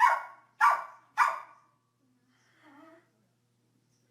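A dog barking: three sharp barks about half a second apart, then a brief faint sound and a pause.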